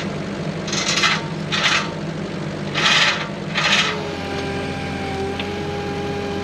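A compact loader's engine idling steadily, with four short rasping scrapes of metal in the first four seconds; a steady whine comes in about two-thirds of the way through.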